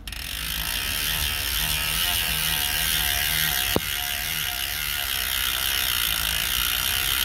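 Elite Wheels rear hub freewheeling as the rear wheel spins: the freehub's steady ratchet buzz of fast, even clicks. One sharper click stands out a little under four seconds in.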